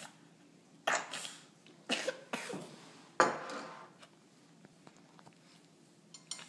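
A person coughing: four short coughs in quick succession, between about one and three and a half seconds in.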